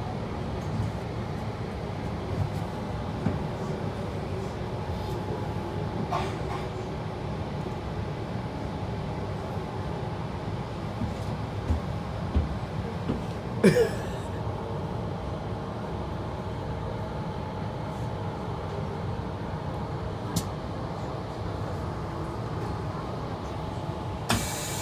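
Electric suburban train running, heard from inside the carriage: a steady low rumble and hiss with scattered clicks and knocks, the loudest a sharp knock about 14 seconds in.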